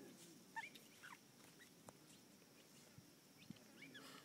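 Australian magpie giving a few faint, short squeaky chirps, spread over a few seconds.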